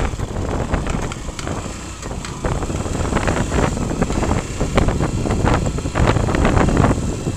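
Motorcycle on the move, its engine running under heavy wind buffeting on the rider's microphone, growing louder about two and a half seconds in.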